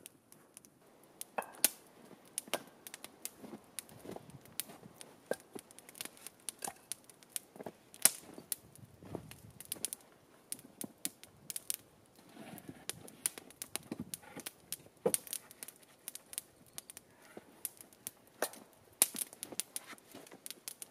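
Small campfire of kindling and split wood crackling, with frequent sharp pops at irregular intervals.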